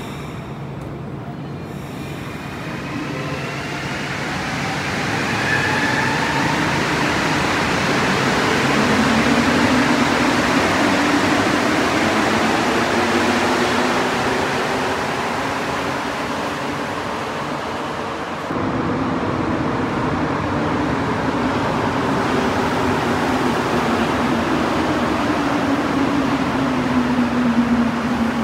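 Montreal Metro Azur rubber-tyred train pulling out of the platform, its traction motors giving a rising whine over a loud running rumble as it speeds up. Partway through, a second train runs along the platform, its whine falling in pitch as it slows.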